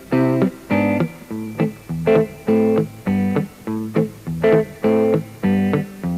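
Instrumental music: a plucked-string instrument playing rhythmic chords, about two strokes a second.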